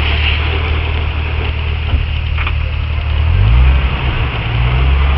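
A Jeep's engine running at low revs while it creeps downhill off-road. About three seconds in the revs rise a little and the engine gets louder.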